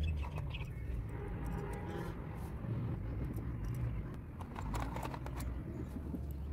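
Steady low outdoor rumble with scattered light clicks and clinks of metal and bead earrings being picked up and handled.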